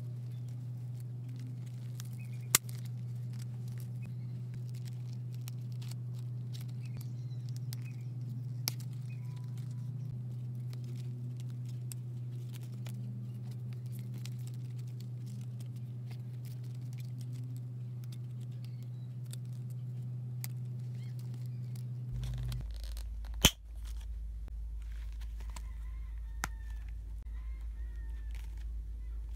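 Light clicks and crinkles of clear plastic binder envelopes being handled and fitted into a faux-leather ring binder, over a steady low hum. One sharp click comes about two and a half seconds in, and a louder click comes later on.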